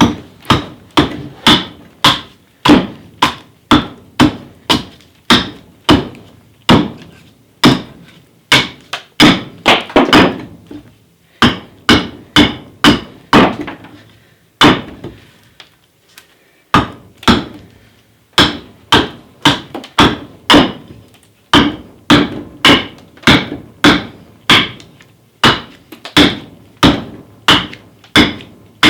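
Carving axe chopping into a green sycamore billet, sharp wooden strikes at about one to two a second, pausing briefly twice near the middle.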